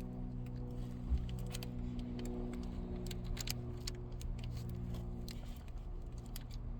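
Light metallic clicks and ticks at irregular intervals as small Phillips screws are moved and turned in the radio unit's metal mounting brackets, over a steady low hum.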